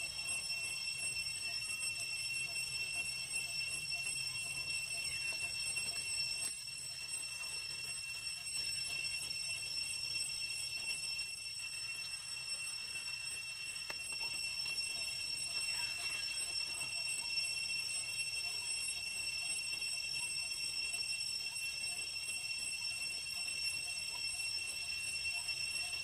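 A steady high-pitched drone of several held tones that does not change, over faint outdoor background noise.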